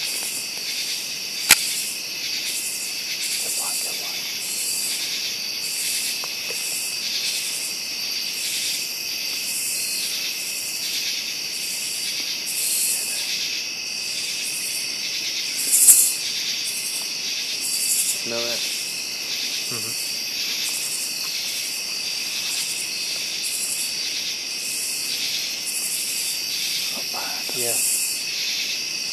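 Night chorus of crickets and other insects: steady high trilling with a pulsed call repeating about once a second over it. Two sharp clicks cut in, the louder one a little past the middle.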